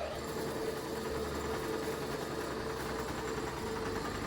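Small rice milling machine running steadily, a continuous whirring hum, with its broken inner part newly replaced.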